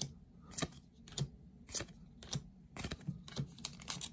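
Yu-Gi-Oh trading cards flipped one by one, a crisp click as each card slides off the stack, a little under two a second, with busier card handling near the end.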